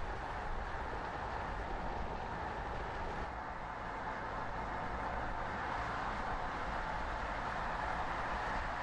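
Mercedes GLC 300d SUV being driven, a steady run of engine, tyre and road noise.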